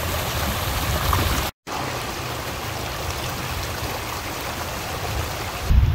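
Muddy flash-flood water rushing and churning over rocks in a wadi, a steady roar of water. It drops out briefly about one and a half seconds in, and a louder low rumble comes in just before the end.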